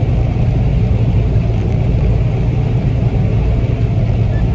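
Combine harvester running steadily while harvesting soybeans, heard from inside the cab as a constant low drone.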